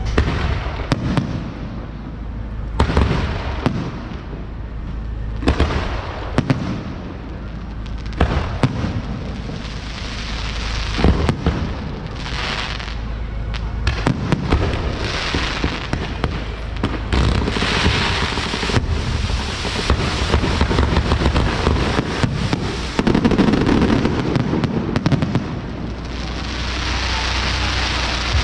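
Fireworks show: repeated sharp bangs of bursting shells with crackling in between, thickening to a dense, steady crackle from the middle to near the end.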